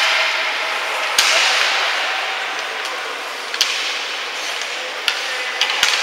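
Ice hockey play on a rink: four sharp clacks of stick and puck, spread a second or more apart, over a steady hiss of skates on the ice.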